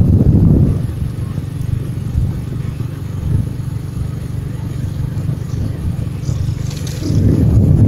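Low, steady rumble of road and wind noise from a vehicle driving along a paved highway, louder in the first half-second and again near the end.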